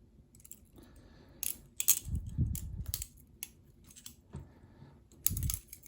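Zieba Memento Mori balisong being handled: a dozen or so irregular sharp metallic clicks from its titanium handles, spacers and blade knocking together, with a few soft handling thumps.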